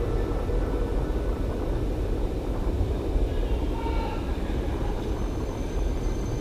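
Steady low rumble of a large indoor sports hall's ambience, with no distinct events standing out.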